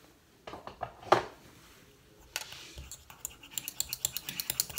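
A few sharp clicks about a second in. Then a thin metal stirrer scrapes and ticks quickly against a small stainless-steel pot as pink oxide colouring is stirred into a thick hand cream.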